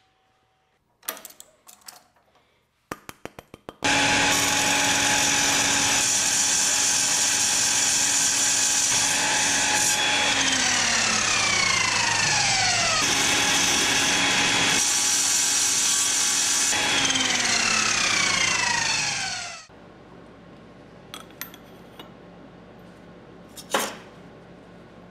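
A few clicks as steel pipe is set in place, then an Evolution sliding miter saw with a Diablo Steel Demon blade runs loud, dry-cutting steel pipe for about fifteen seconds. Its whine falls in pitch twice as the blade winds down, and it stops sharply.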